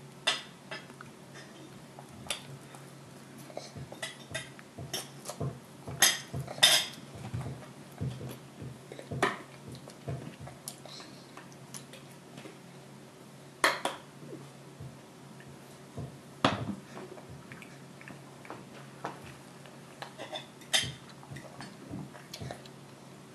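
Irregular clicks and knocks of a baby's hands patting and scraping a plastic tray as he picks up rice, the loudest a few seconds apart, over a faint steady hum.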